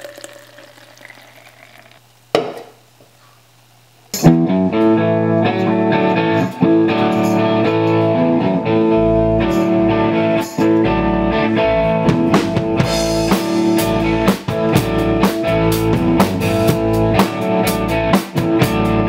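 A drink being poured into a plastic shaker bottle, then a single short knock. About four seconds in, a live band starts playing: a drum kit with cymbals and snare, electric guitar and bass.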